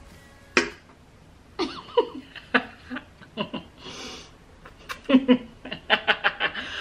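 A woman laughing, breaking into a run of quick laughs near the end.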